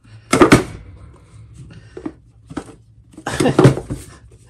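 Handling noise of a cardboard box being turned over in the hands: two loud scuffing rustles, one just after the start and one about three seconds in, with a few light taps between.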